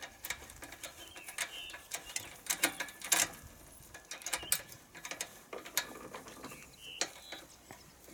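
Irregular metal clicks and ticks of an 8 mm socket ratchet and spanner tightening the throttle-cable clamp bolt on a small four-stroke engine's throttle plate, with a few short high squeaks.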